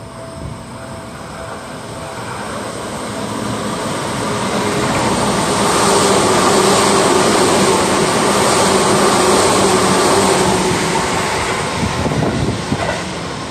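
Seibu 10000 series limited express electric train passing through the station at speed without stopping. The rumble and rush of its wheels on the rails grow louder over the first six seconds, stay loud while the cars sweep past, and ease off near the end as it pulls away, with a steady hum under the rushing.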